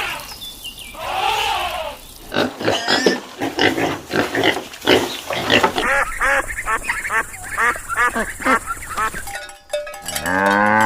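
Pigs squealing in many short, rising-and-falling calls, a few a second, with a longer, lower call near the end.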